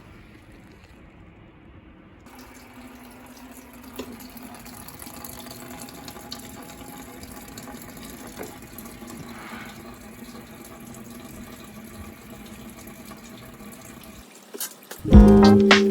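Water running steadily, like a tap or a stream of liquid being poured, starting about two seconds in, with a few small clicks; loud music cuts in at the very end.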